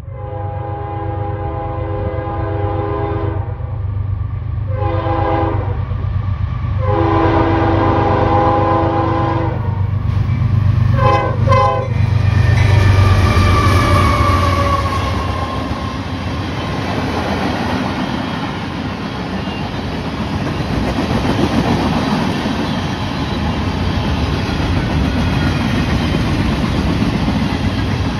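CSX diesel freight locomotive blowing its air horn for a grade crossing: long blasts and a shorter one, then two quick short blasts, over the low throb of its engine. The locomotive and a string of freight cars then roll past with a steady rumble of wheels on rail.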